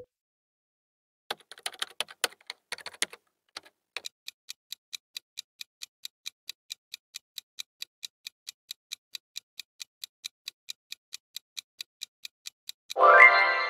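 Countdown-timer clock-tick sound effect, with evenly spaced sharp ticks at about four a second, after a short run of irregular keyboard-like clicks. Near the end the ticking stops and a louder pitched sound effect starts, marking time up.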